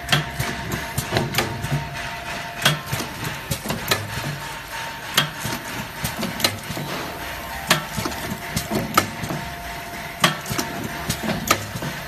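Automatic blister packing machine running at a steady cycle: a sharp knock from its stations about every 1.3 seconds, with lighter clicks and clatter between, over a faint steady hum.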